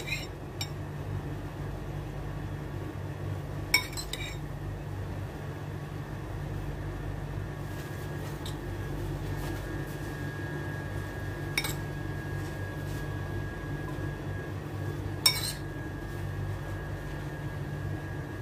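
Metal spoon clinking against a ceramic bowl a few times as filling is scooped out, over a steady low hum.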